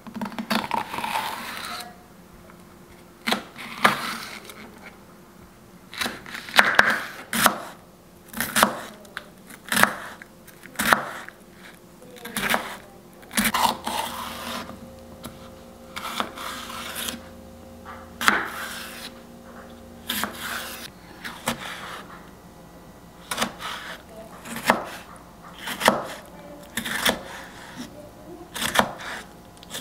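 Irregular knocks and clatters of objects being handled, roughly one every second or two, with short rustling swishes between them and a faint steady hum partway through.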